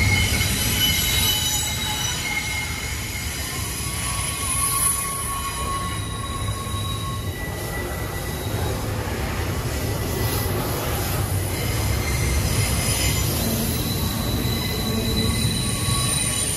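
Freight railcar wheels squealing against the rails in several high, overlapping tones that come and go, over the steady low rumble of rolling cars.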